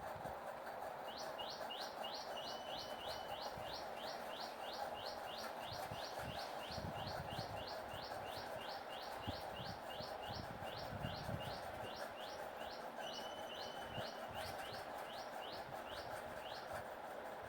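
Hot oil sizzling steadily as ribbon pakoda dough fries. Over it, a bird gives a long run of quick rising chirps, about two to three a second.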